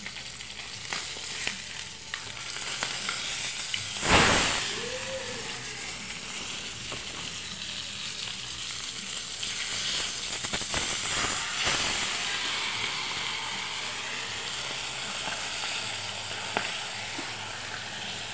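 Dried fish sizzling steadily in hot oil in a pan over a wood fire. About four seconds in there is one loud sharp knock, with a few smaller clicks later.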